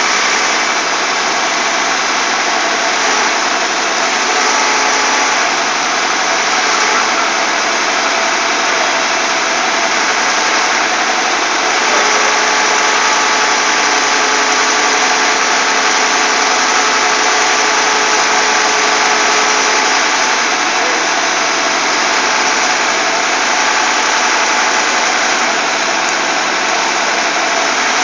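Truck-mounted hydraulic crane's engine running steadily to drive the boom, a loud constant mechanical noise with a faint steady whine in it.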